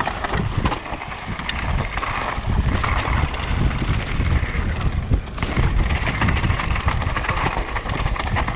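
Wind rushing over the camera microphone and mountain bike tyres rolling fast over a dirt trail, with scattered sharp clicks and knocks as the bike goes over bumps.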